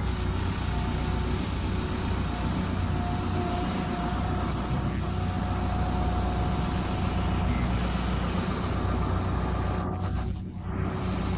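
Backhoe's diesel engine running steadily, with a faint steady whine over the low engine noise; the sound dips briefly near the end.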